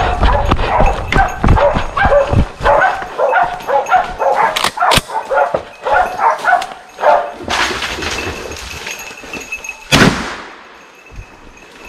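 Hunting dog barking over and over at a wild boar it has found. About ten seconds in comes a single gunshot that fades away, the shot that brings the boar down.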